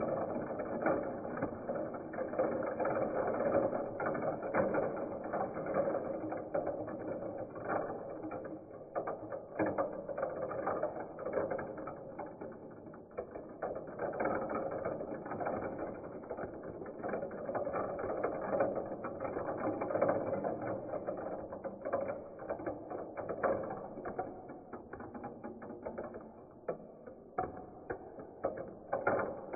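Many small plastic balls rolling and clattering down a plastic toy marble run: a steady rattle of rolling balls with dense clicks as they drop through the curved tracks, chutes and funnels. It grows quieter near the end.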